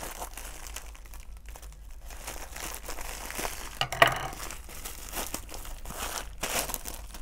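A crinkly plastic mailer bag being handled and opened, with a continuous crackle of crumpling plastic and one sharper, louder crackle about four seconds in.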